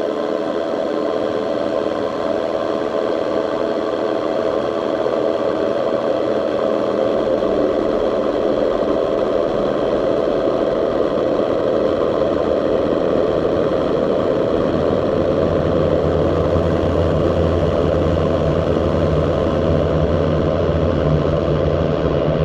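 Electronic music from a live set: a dense, sustained droning synth texture. A low bass swells in about a third of the way through and grows stronger past the middle.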